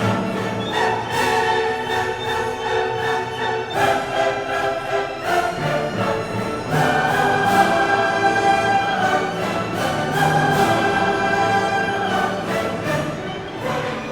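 Orchestral classical music, with bowed strings holding sustained chords that change every few seconds.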